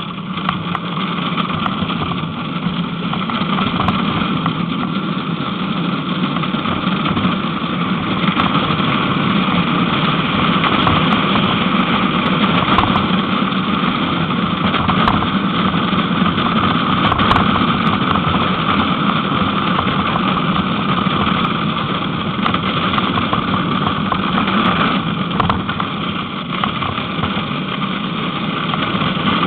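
Soap box cart's hard wheels rolling fast on asphalt down a hill: a steady rolling noise that grows louder over the first few seconds as the cart gains speed, with a few small knocks from the cart.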